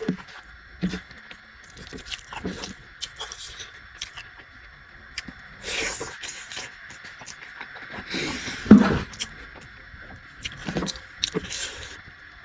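Close-up eating sounds of a person eating noodles and other food: irregular chewing, small clicks and scrapes of utensils on a plate, and two longer noisy bursts about six and nine seconds in, the second the loudest.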